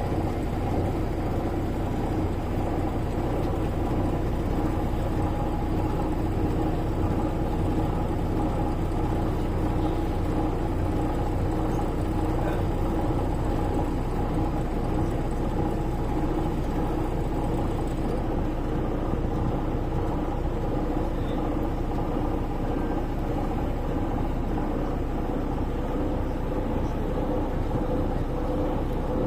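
Steady low rumble and drone of a moving vehicle, unchanging throughout.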